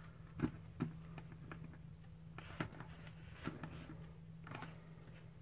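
Faint, scattered clicks and taps from handling multimeter test probes and working the meter's controls, over a low steady hum.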